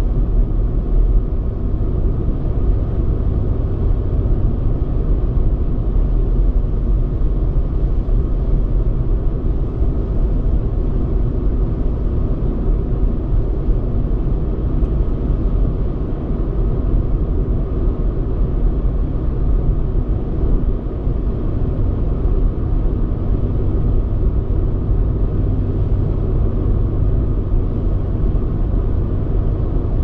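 Car cruising at motorway speed: a steady low rumble of tyres on the road and the engine.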